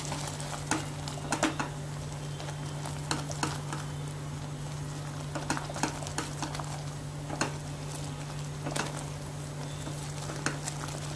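A spoon stirring a thickening cheese sauce in a pan on the stove, with irregular scrapes and taps against the pan over a steady low hum.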